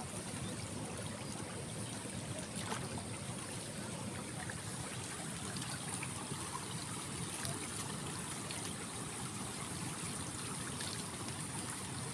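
Steady trickle of running water around a flooded rice paddy.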